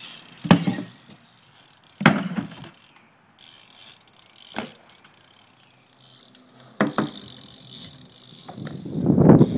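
BMX bike being ridden through tricks: about five sharp knocks as the tyres and frame land and hit the ground, spread out a second or two apart, with a louder rough rushing noise building near the end.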